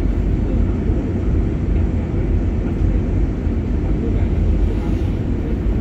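Steady low cabin noise of an airliner on its approach, the jet engines and rushing air heard from inside the passenger cabin.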